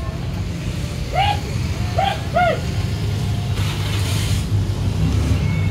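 Motorcycle engines running on a street, a steady low rumble. Three short high-pitched calls come about a second in, and a brief hiss follows around the middle.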